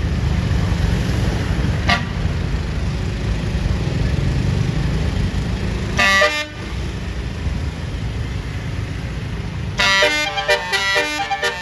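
A bus engine rumbles steadily, with a brief horn note about two seconds in and a short loud horn blast about six seconds in. Near the end a basuri telolet horn starts a fast tune of rapidly changing notes.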